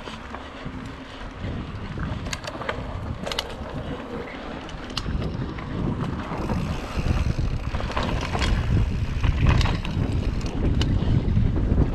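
Wind buffeting the microphone over the rumble of mountain bike tyres on a dirt trail, with scattered clicks and rattles. The rumble grows louder about halfway through as the ride speeds up.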